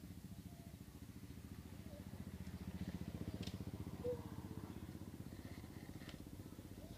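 A small engine running steadily, with a fast, even pulse, swelling a little in the middle. A couple of light clicks come from plastic toy trucks being handled.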